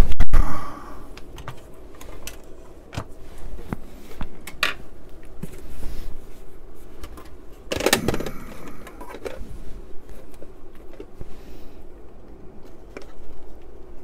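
Handling noise of bare computer drives being stacked by hand: scattered clicks and knocks of metal drive cases, with a louder knock and scrape about eight seconds in as the hard drive is set onto the CD-ROM drive's steel top.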